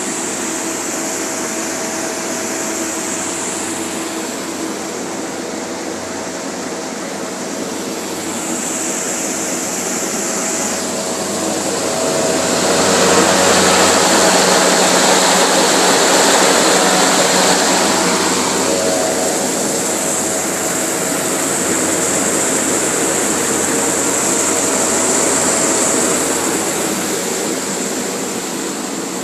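High-expansion foam generator discharging foam: a steady, loud roar of its fan and spray with a low steady hum, swelling for several seconds in the middle and then easing back.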